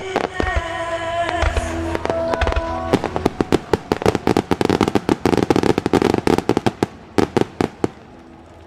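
Fireworks in a music starmine: a song's last held notes with a few low booms for the first three seconds, then a rapid salvo of fireworks bangs, several a second, which thins out near the end.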